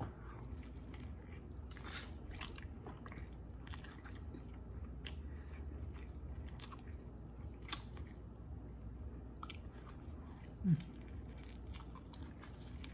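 A person biting and chewing a mouthful of breakfast burrito close to the microphone, with scattered small wet clicks and crunches of the bite. Near the end comes one short low voiced sound from the eater's throat.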